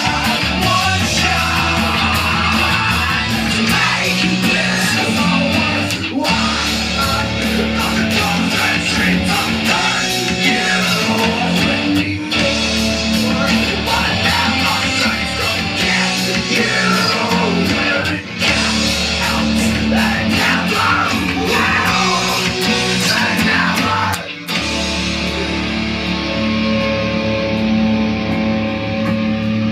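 Rock song with guitar, drums and singing. About three-quarters of the way through the drums stop and a held chord rings on.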